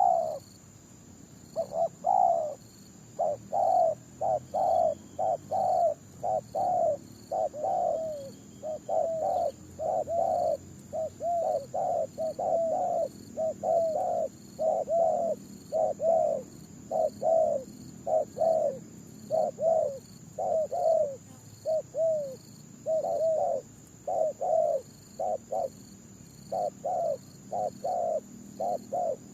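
Spotted doves cooing: a long run of soft, repeated coo notes, each dipping in pitch, delivered in quick groups with short pauses between phrases.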